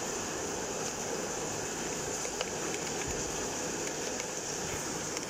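Steady rainfall: a constant hiss of rain with a few faint ticks of single drops.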